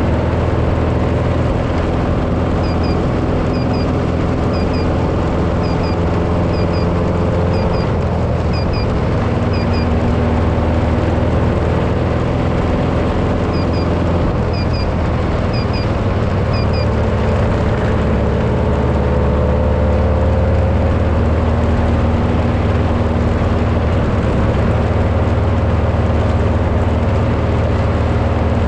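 Off-road race vehicle engine running steadily under a haze of road and wind noise. A faint double chirp repeats about once a second for several seconds, twice over.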